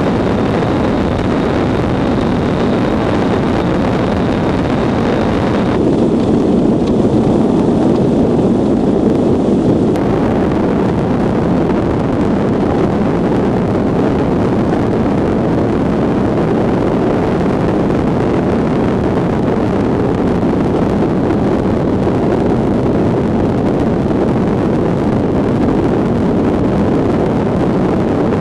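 Steady rushing noise of travel at speed over black ice: wind buffeting the microphone over the hiss and rumble of steel runners on the ice. A faint high whine runs through the first six seconds, and the sound turns duller for a few seconds after that.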